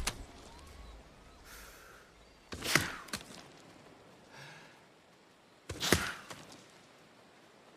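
Blowgun fired twice, about three seconds apart: each shot a sharp puff of breath ending in the dart's quick thunk, with a short intake of breath before it. A sharp click at the very start.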